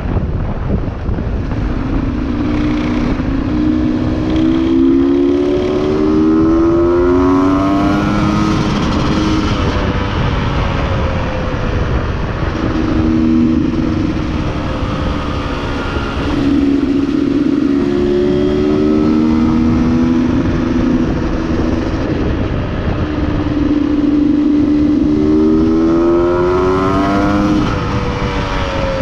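Two-stroke Beta RR enduro motorcycle engine running under way, its note climbing in several long revs, with heavy wind noise on the microphone.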